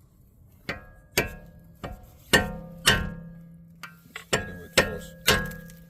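Hammer striking a flat screwdriver held against a CV axle nut: about nine sharp metal-on-metal blows, each with a ringing tone. The blows stake the nut's collar into the axle to lock the nut in place.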